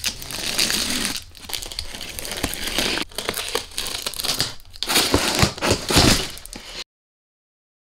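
A box cutter slicing through packing tape and cardboard along the seams of a large shipping box, then the cardboard lid being lifted and flexed. It is a dense, scratchy crinkling and tearing with short pauses, and it stops suddenly about seven seconds in.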